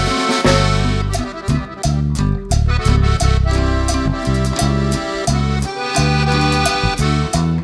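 Instrumental background music: held melody notes over a moving bass line and a steady beat.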